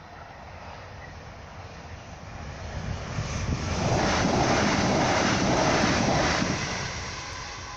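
Electric passenger train passing over a level crossing at speed: a rushing rumble of wheels on rail that builds over a couple of seconds, stays loud for about three seconds while the carriages go by, then fades away.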